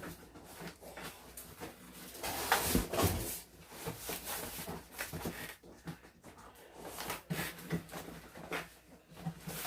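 Cardboard and foam packing scraping, rubbing and knocking as a boxed TV is wrenched out of its tightly packed carton. The noise comes in uneven bursts, loudest about two and a half to three and a half seconds in.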